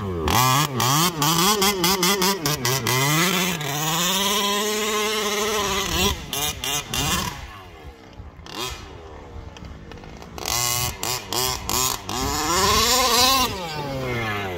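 HPI Baja 5T 1/5-scale petrol RC truck's two-stroke engine revving up and down over and over under hard throttle, with quick throttle chops between bursts. It drops to a fainter drone for a couple of seconds about halfway, then revs loudly again.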